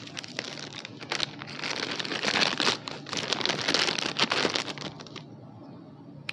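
Crinkly plastic packaging of a Happy Meal toy rustling and crackling as it is opened and handled, stopping about five seconds in.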